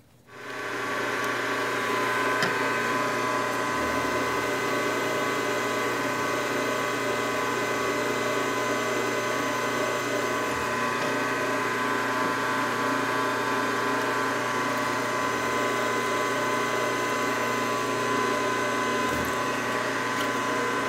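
Milling machine spindle starting up and running steadily with a whine of several tones, while an 11/64-inch HSS stub twist drill cuts a pilot hole in tool steel.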